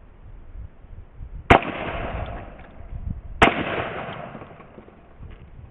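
Two shots from a 12-gauge semi-automatic shotgun, about two seconds apart, each followed by a long fading echo.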